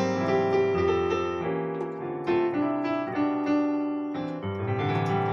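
Piano-voiced keyboard playing fast rising and falling arpeggios over held low bass notes, the notes ringing into one another; a new bass note enters about four and a half seconds in.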